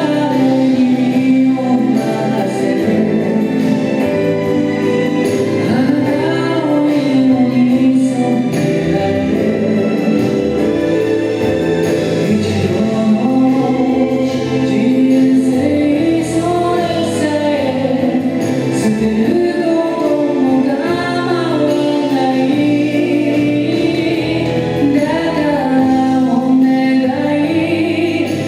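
A recorded Japanese song: a singer's melody with long held, wavering notes over steady instrumental accompaniment, played for a dance.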